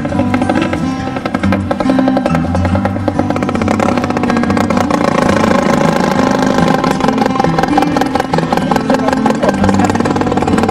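Background music with percussion and a moving bass line.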